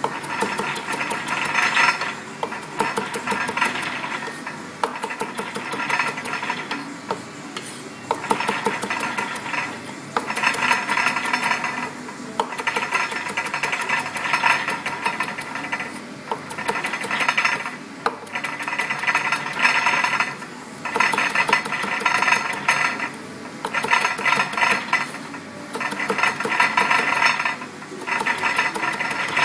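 Chef's knife rapidly chopping leafy green herbs on a plastic cutting board: a fast stream of blade taps against the board, in runs of a couple of seconds with short breaks between.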